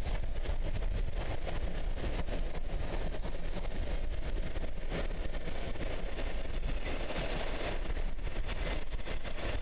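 Passenger carriages of a steam-hauled train rolling across a steel trestle bridge: a steady rumble of wheels on the rails, with many small clicks and clacks.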